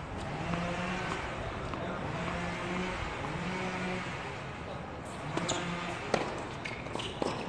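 Tennis ball being struck by rackets and bouncing on a hard court as a doubles point starts: a few sharp pops from about five seconds in, over low voices.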